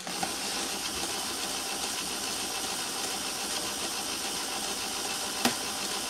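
Small fischertechnik electric motor running steadily, whirring as it drives a gear wheel through a gearbox, axle and cardan joints; it starts suddenly. A single sharp click comes near the end.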